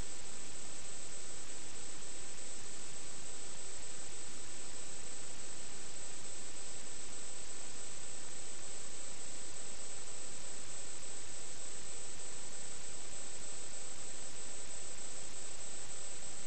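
Steady electronic hiss with a constant high-pitched whine, unchanging throughout: noise from the recorder's audio line rather than any sound of the work.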